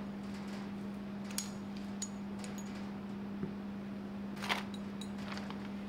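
A few light clicks and clinks of small replacement regulator parts being set down on a work surface, over a steady low hum.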